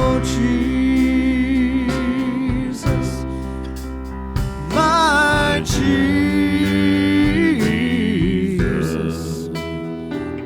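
Slow gospel hymn sung over instrumental accompaniment, with voices holding long notes and a few phrases that waver in pitch.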